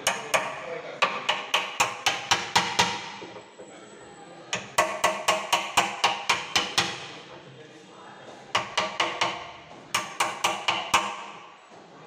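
Hammer striking the metal-capped handle of a wood chisel, driving the blade into the edge of a wooden door to chop out the lock mortise. The taps are quick and ringing, about four a second, and come in several runs with short pauses between.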